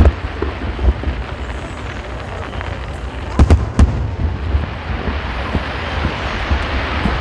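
Aerial fireworks bursting: a sharp bang right at the start, another about a second in, and a quick cluster of three loud booms about three and a half seconds in, over a continuous low rumble.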